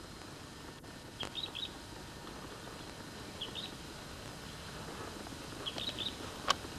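Small bird chirping in three short bursts of quick high chirps over a steady background hiss, with one sharp click near the end.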